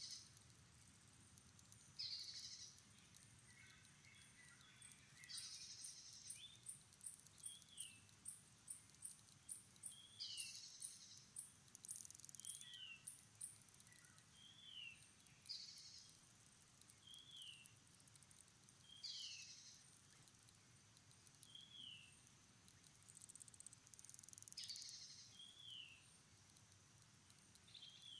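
Faint birds and insects: a short falling whistled bird note repeats about every two seconds, over a high pulsing insect chirp of about two pulses a second for several seconds near the start and a few brief high buzzes.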